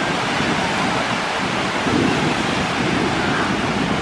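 Small surf washing onto a sandy shore, a steady rush of breaking waves, with wind buffeting the microphone.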